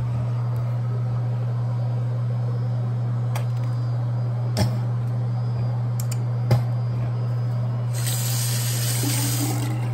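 A steady low hum throughout, with two light clicks in the middle, then about two seconds of hissing, like a spray, near the end.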